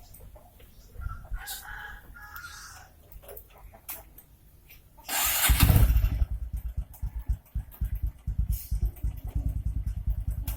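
Motorcycle engine starting about halfway through, with a sudden loud burst, then running at idle with a rapid, even low pulsing. Faint scattered sounds come before it.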